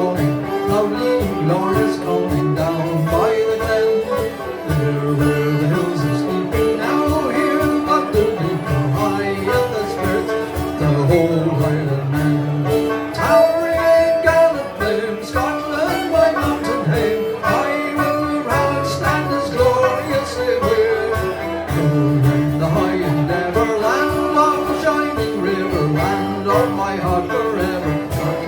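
Live folk-band music: strummed twelve-string guitar and banjo playing a Scottish tune, with a steady note held underneath the moving melody.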